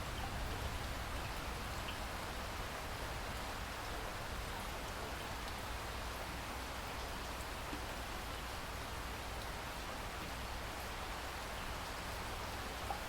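Steady rain falling, an even hiss of many drops with a few separate drop ticks standing out.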